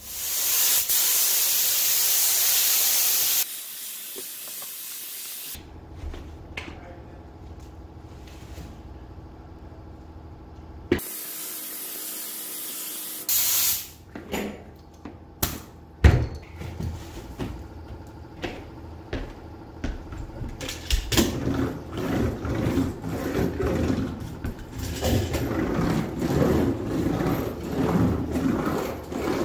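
Compressed-air spray gun hissing as it sprays Stabond 440 contact adhesive: a long burst at the start and a shorter one about eleven seconds in. Then come scattered knocks, and the rustle and handling noise of the fiberglass roof sheet being rolled out.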